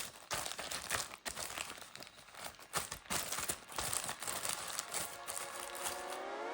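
Packaging being handled and torn open, with irregular crinkling and rustling and small sharp crackles. Near the end a rising tone swells in as music begins.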